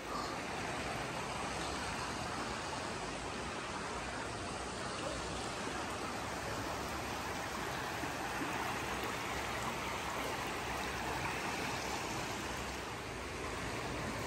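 Shallow stream running over flat rocks: a steady rush of flowing water.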